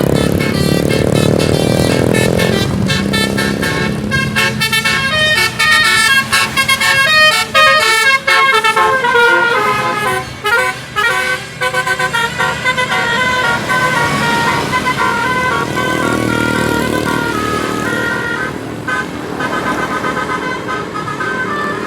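A bus's telolet musical air horn playing a fast tune of many short stepped notes, with a few brief breaks between runs. The bus engine runs underneath, rising in pitch in the first couple of seconds.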